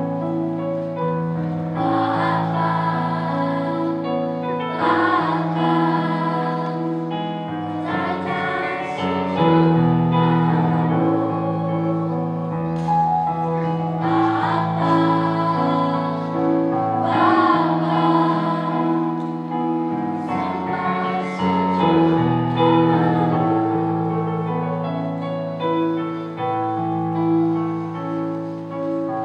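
Children's choir singing an Indonesian-language worship song over keyboard accompaniment with a sustained bass line.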